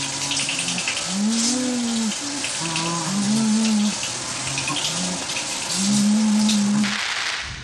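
Elephant infrasonic rumbles from a tape recording played back at ten times normal speed, which brings them up into hearing as a series of about five low calls, some rising and falling, others held flat, over a steady hiss.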